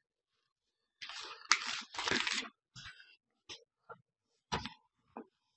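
Thin Bible pages being leafed through: paper rustling for a second or so starting about a second in, then a few small scattered clicks and knocks.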